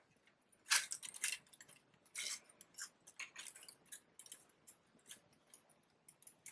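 Paper flowers rustling and crinkling as they are handled and pushed together into a bouquet, in short irregular crackles, the loudest about a second in.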